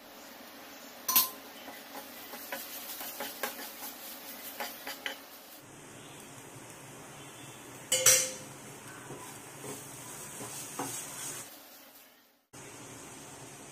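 A metal spoon and a slotted steel spatula scrape and clink against a nonstick frying pan as onion masala is stirred. Two sharp clinks stand out, one about a second in and one a little past the middle.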